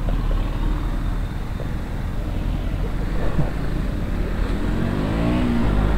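Motorcycle running at low speed in traffic, with a steady engine rumble and road and wind noise. Near the end a pitched engine note rises and falls.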